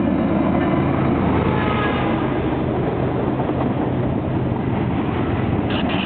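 Freight train passing close by: the GE ES40DC diesel locomotive's engine runs past and fades, then loaded boxcars roll by with steady wheel-on-rail noise and clickety-clack over the rail joints. A high squeal starts near the end.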